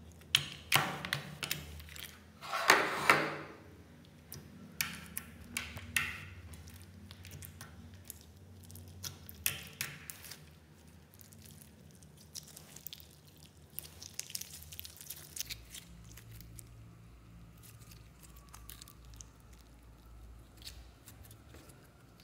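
Hands squeezing and kneading glossy slime, giving irregular wet squelches, clicks and pops, loudest in the first few seconds. Later the slime is stretched and folded, with fainter, sparser sticky crackles.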